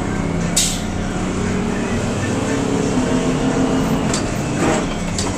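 Crown school bus engine running under way, heard from inside the cab, its note climbing a little in pitch midway as it pulls in gear, with a few sharp clicks and rattles from the bus.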